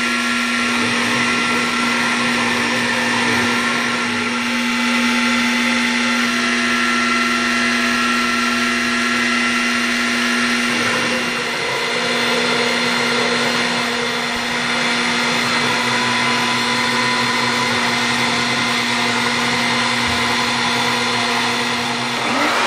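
X2 mini mill's spindle running steadily as a small end mill cuts half-inch UHMW plastic, a steady whine made of several tones over a noisy hiss. The mix of tones changes a little about halfway through.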